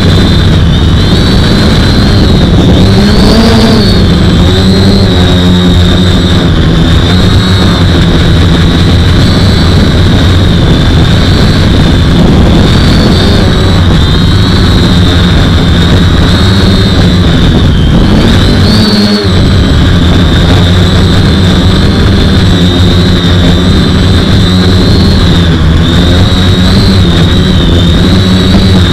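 Quadcopter's four 2212 1000 kV brushless motors spinning unbalanced propellers, heard from the camera on its frame: a loud, steady high whine that rises and falls in pitch over a low drone. The low drone drops out for a moment about two-thirds of the way through.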